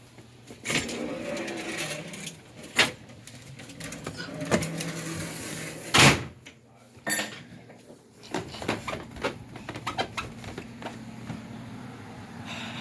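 A door opening and shutting with several sharp knocks, the loudest about six seconds in, over the steady low hum of a running indoor air handler blower. The blower is still running after the outdoor unit has been shut down.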